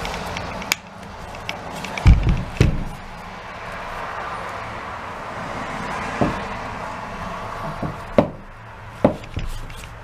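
Handling noise from gloved hands reassembling the red plastic clamshell handle housing of a Milwaukee angle grinder: rubbing, with scattered plastic knocks and clicks, the loudest a cluster about two seconds in and a sharp one about eight seconds in, over a steady low hum.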